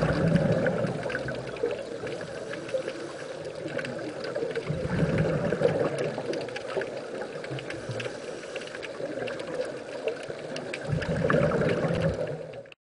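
Scuba diver's exhaled breath bubbling from the regulator underwater, in three gurgling surges about five to six seconds apart, over a steady faint crackle. The sound cuts off suddenly near the end.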